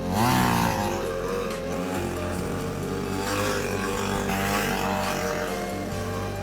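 Gasoline chainsaw engine revving up near the start, then running on with its pitch rising and falling as it is worked into the ice.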